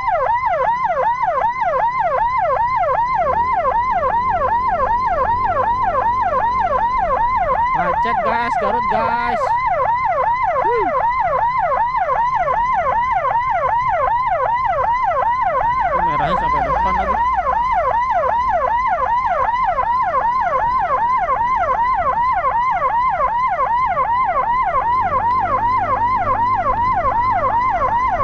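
Electronic emergency siren sounding a fast yelp: a quick rising-and-falling wail repeating several times a second without pause, over a low engine and traffic rumble.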